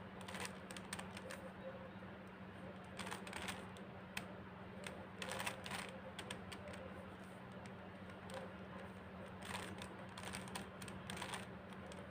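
Plastic 3x3 puzzle cube being turned by hand: quick clicking and rattling as its layers rotate, in several short bursts with pauses between.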